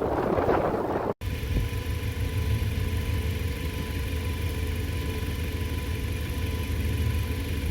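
Gusty wind buffeting the microphone for about a second, then after an abrupt cut a steady low engine rumble of a running vehicle.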